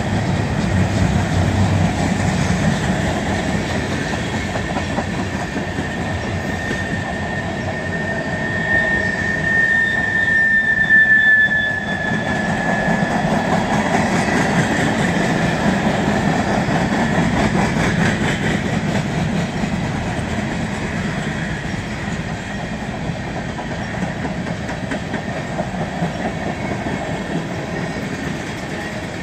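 Freight train cars rolling past with a steady, loud noise of steel wheels on rail. A high squeal from the wheels sets in about eight seconds in, peaks, and stops about four seconds later.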